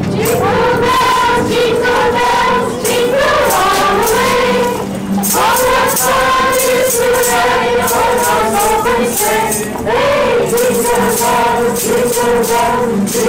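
A group of carolers singing together, holding long notes, with a ring of jingle bells shaken along.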